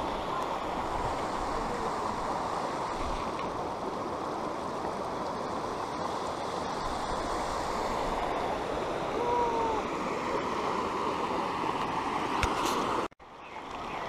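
Shallow mountain river running over gravel and stones: a steady rushing of water. It drops out abruptly about a second before the end, then comes back a little quieter.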